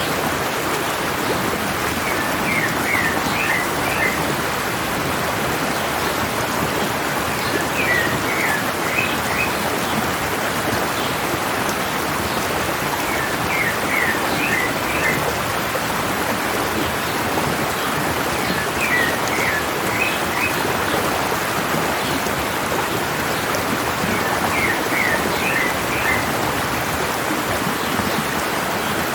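Steady rush of a stream's running water, with a bird singing the same short phrase of quick, falling notes about every five and a half seconds, five times over.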